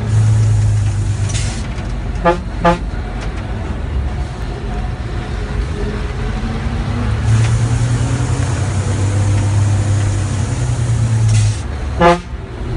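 Scania 111 bonneted truck's 11-litre inline-six diesel running steadily under load, heard from inside the cab, its low drone swelling from about halfway through. Two short horn toots come a couple of seconds in, and another near the end.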